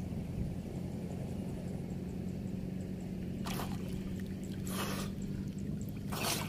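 Water splashing and pouring off a cast net in three short bursts as it is worked in floodwater, over a steady low hum.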